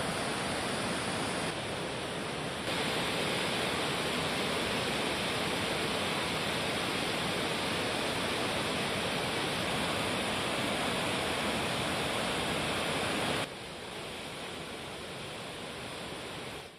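Floodwater rushing through the open spillway gates of a dam, a steady dense rush of noise. It gets louder about three seconds in, drops noticeably about thirteen seconds in, and fades out near the end.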